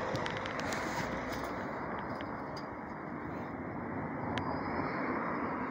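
Steady outdoor city background noise, a low even rush of street traffic, with a few faint clicks.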